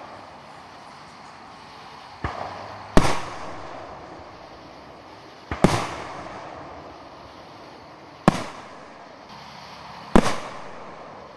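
Aerial firework shells bursting: five sharp bangs about two to three seconds apart, the second the loudest, each trailing off in a rolling echo.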